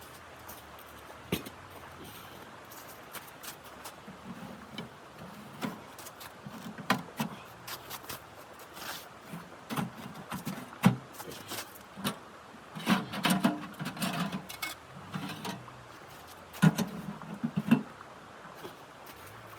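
Irregular clicks and knocks with short, soft low thuds over a faint steady hiss, growing busier in the second half.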